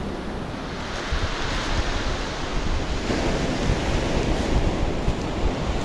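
Sea waves breaking and washing up a pebble beach, with wind buffeting the microphone; the surf swells about a second in.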